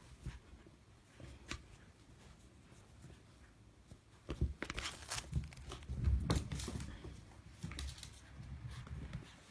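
Chihuahua tugging and shaking a plush toy: fabric rustling, scuffling and thumps, with scattered clicks, busiest and loudest from about four to seven seconds in.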